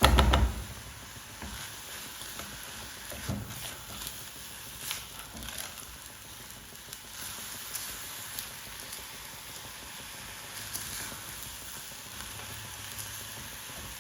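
Washed raw rice sizzling in cooking oil in a non-stick pot while it is stirred to coat, with scattered clicks through the sizzle. A thump at the very start.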